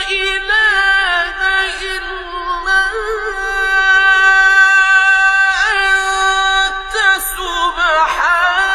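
A male reciter chanting the Quran, holding long high notes with ornamental wavering turns: about half a second in, again around five and a half seconds, and in a trembling run near the end.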